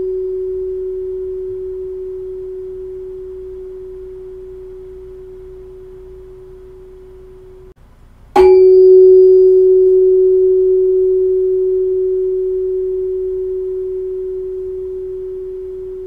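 Tuning fork of about 375 Hz on a wooden resonator box, ringing as one steady pure tone that slowly fades. A little under eight seconds in, the tone drops out briefly. The fork is then struck again with a sharp hit and a short high ring, and rings loud and steady, fading slowly once more.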